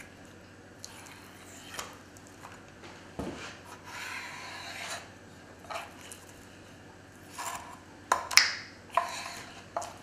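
A kitchen knife cutting a squid mantle on a wooden chopping board, with wet rubbing and scraping as the pieces are handled. A longer drawn cut comes about four seconds in, and a few sharp knocks and clicks on the board near the end are the loudest sounds.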